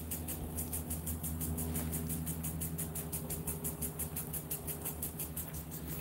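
A steady low mechanical hum, with a fast, even, high-pitched pulsing at about eight beats a second over it.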